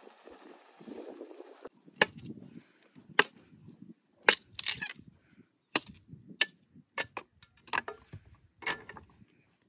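Small hand axe chopping thin wooden branches: about a dozen sharp, separate chops at an uneven pace, starting about two seconds in.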